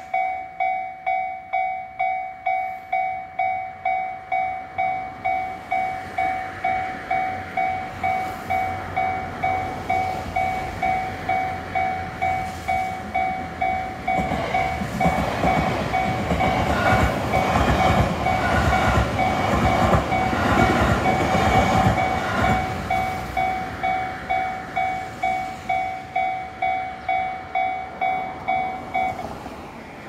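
Japanese railway level-crossing warning bell ringing, an electronic two-tone ding about twice a second. An electric train passes from about 14 to 23 seconds in, its wheels rumbling and clattering over the rails and briefly louder than the bell. The bell stops near the end.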